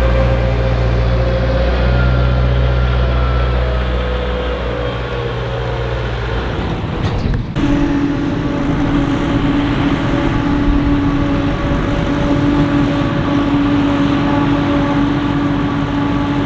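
Diesel engines of farm machinery running steadily in a maize harvest. About seven seconds in, the sound changes abruptly from a deep low drone to a steady, higher-pitched hum.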